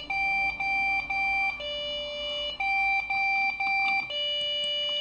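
Lenovo ThinkCentre desktop's motherboard beeper sounding its power-on self-test error code: three short beeps at one pitch, then one longer beep at a lower pitch, repeated over and over. The computer fails to boot, and three short beeps and one long is the Lenovo code for a memory problem.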